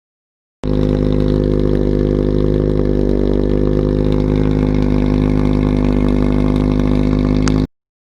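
Subaru BRZ's flat-four engine and exhaust idling steadily, with an even low drone and no revving. It cuts in and out abruptly.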